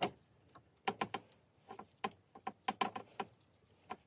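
Light, irregular clicks and taps of small parts being handled as a wire connector is pushed onto the motor's positive terminal inside a cordless circular saw. There are about a dozen clicks at uneven spacing.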